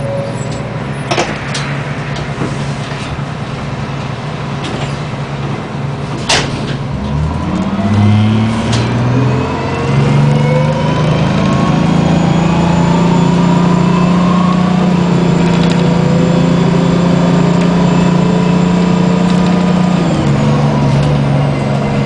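The Detroit Diesel 6V92TA two-stroke V6 diesel of a 1994 New Flyer D40 bus, heard from inside the cabin. After several seconds of quieter running with two sharp knocks, the engine pulls hard from about seven seconds in, its pitch rising in steps as the Allison automatic transmission shifts up, then holds a loud steady drone and eases off a little near the end.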